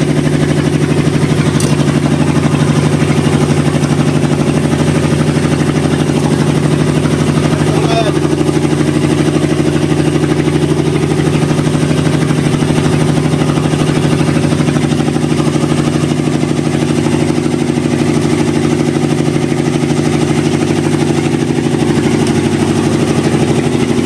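Fishing boat's engine running steadily at a constant speed, an even unbroken hum.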